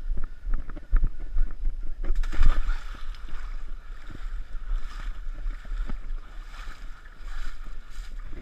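Muffled knocks and scuffs of a runner moving through mud and water, picked up by a body-worn action camera, giving way about two seconds in to a rushing, splashy noise that surges and fades.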